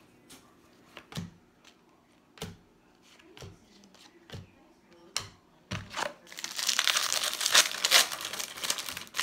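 Trading cards being handled, with scattered soft clicks and taps. About six seconds in, a foil card-pack wrapper crinkles loudly for a few seconds as it is opened.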